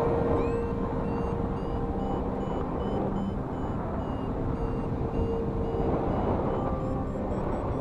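Wind rushing over the microphone in flight, with a run of short, evenly spaced high electronic beeps, about two to three a second, that slowly rise in pitch.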